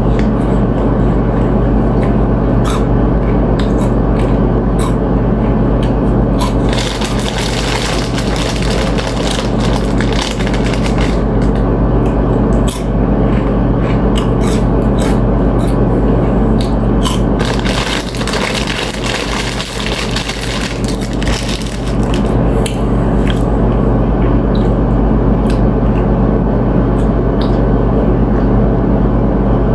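Close-miked chewing and crunching of chips with tuna ceviche, many short crunches and crackles over a steady low hum.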